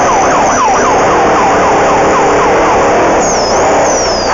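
Race vehicle's passing siren sounding a rapid yelp of falling sweeps, about three a second, over loud engine and drivetrain noise. It warns a slower vehicle ahead of an overtake, and the yelp fades out near the end.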